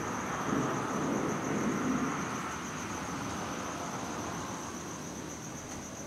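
Night insects chirping in a steady, high-pitched chorus, over a low rumble that swells in the first couple of seconds and then fades away.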